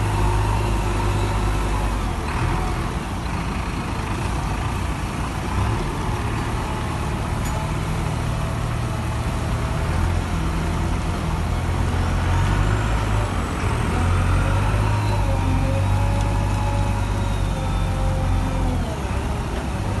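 JCB 3DX backhoe loader's four-cylinder diesel engine running steadily as the machine drives across the yard, its note shifting slightly in pitch now and then.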